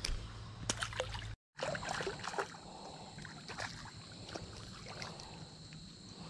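A small sunfish tossed back into a shallow creek lands with a small splash. After a cut comes faint splashing and the knocks of a spinning rod and reel being handled as the next fish is reeled in.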